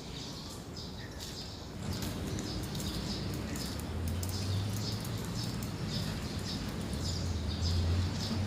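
Small birds chirping over and over in short, high notes. A low engine rumble from passing traffic builds in from about two seconds in and grows louder.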